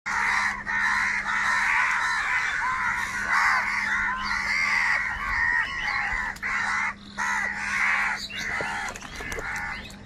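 A flock of house crows cawing loudly and continuously, many calls overlapping, with only a few brief breaks.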